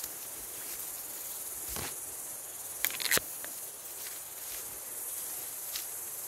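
Footsteps on a leaf-littered forest trail over a steady high hiss of insects, with two sharp clicks near the middle.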